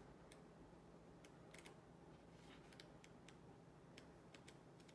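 Near silence: faint scattered ticks and light clicks of a paper guidebook being handled as its pages are leafed through, over a low steady hum.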